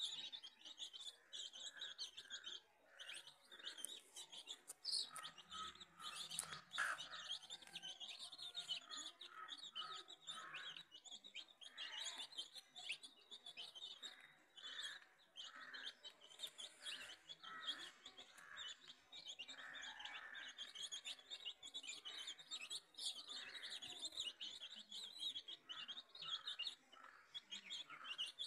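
A brood of domestic chicks peeping constantly: many quick, high chirps from several birds overlapping without a break.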